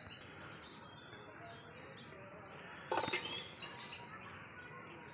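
Small birds chirping over steady outdoor background noise. About three seconds in, a short metal clatter as the cooking pot is tipped against a steel bowl and the boiled vegetables are poured out.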